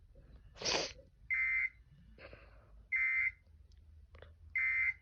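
Three short, harsh electronic data bursts, each about half a second long and about a second and a half apart: the Emergency Alert System's end-of-message tones closing a spoken alert. A brief noisy whoosh comes just before the first burst.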